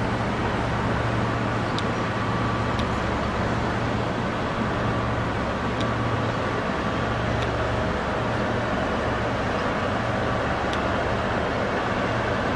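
Steady low drone of a river cargo barge's engine under way, over an even rushing noise.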